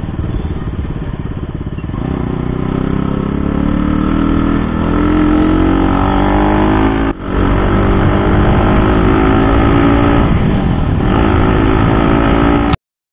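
KTM RC 200 BS6's single-cylinder engine running while being ridden, its pitch climbing steadily as it accelerates, with a brief drop about seven seconds in, like a gear change, before it pulls again. The sound cuts off abruptly near the end.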